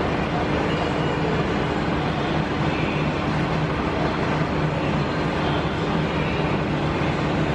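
Powered bead roller running steadily, a constant electric-motor hum and rumble as a sheet-steel panel edge is fed through its rollers.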